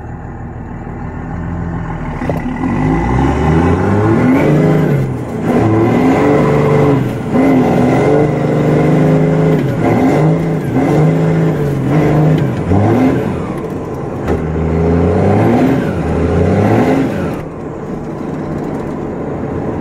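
First-generation Cummins inline-six turbo diesel pickup accelerating hard, heard from inside the cab, its engine note climbing and dropping again and again and falling off near the end. The revs flare as the clutch slips and burns up.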